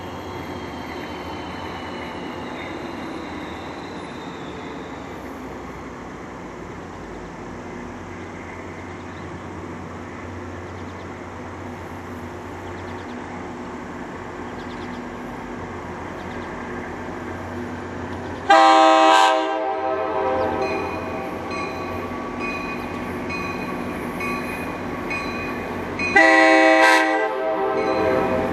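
An EMD GP40PH-2 diesel locomotive approaching with a steady low engine rumble. About eighteen seconds in, its K5LA multi-chime air horn sounds loudly as a chord, holds at a lower level, and is blown loud again near the end.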